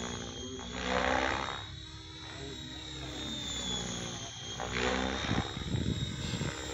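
Thunder Tiger E620 electric RC helicopter in flight: a steady high whine from its electric drive under the rotor noise, with the whoosh of the main blades swelling twice as it passes and turns.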